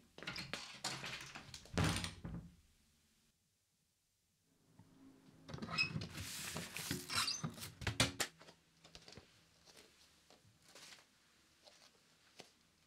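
A door being handled: rustling and thuds in two bursts broken by a moment of dead silence, with a sharp knock about eight seconds in, then faint scattered ticks.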